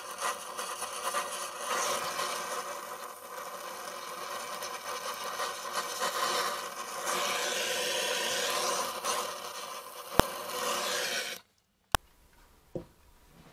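Flame of a small gas-welding torch hissing steadily on a steel pipe, with a sharp click about ten seconds in. The hiss cuts off abruptly a little over eleven seconds in, followed by a click and a faint knock.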